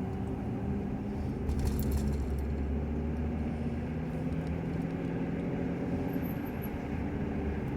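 Steady low road and engine rumble from inside a moving car.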